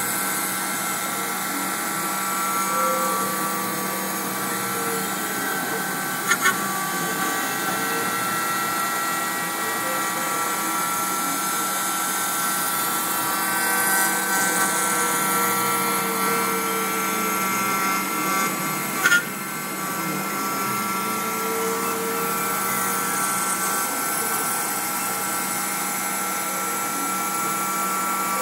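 HBS-S3040 desktop CNC router milling chemical wood with a ball-nose end mill: a steady high machine whine made of several held tones, with lower tones rising and falling as the cutter moves along the part. Brief sharp knocks come twice about six seconds in and once near nineteen seconds.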